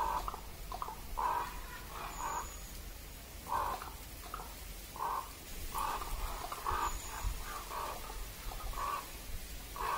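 Common raven giving a run of short, clattering calls, about one or two a second at an uneven pace.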